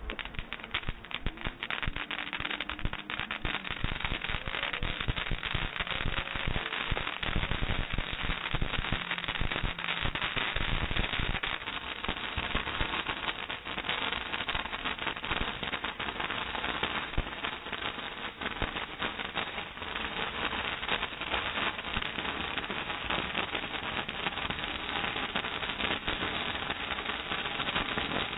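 Ground firework fountains spraying sparks, with a dense, continuous crackle of many small rapid pops.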